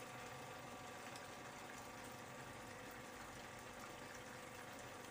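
Tofu and fish in a thin sauce simmering faintly and steadily in a frying pan on the stove.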